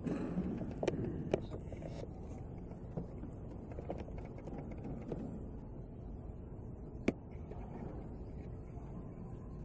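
Quiet church room tone: a low steady rumble with faint indistinct murmur, broken by a few sharp clicks or knocks, the clearest about one and a half and seven seconds in.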